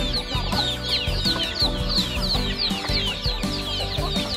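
A flock of chickens with many young chicks: a dense chorus of short, high chick peeps over clucking hens, with background music underneath.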